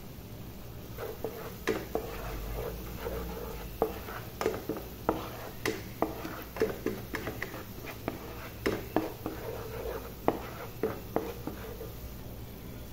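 A spatula stirring and scraping thick masala paste around a non-stick frying pan, with irregular knocks and scrapes one or two a second.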